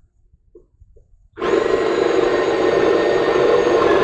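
Electric drill with a half-inch bit boring through the wooden post boards. After a short pause with a couple of faint clicks, the drill starts about a second and a half in and runs steadily under load.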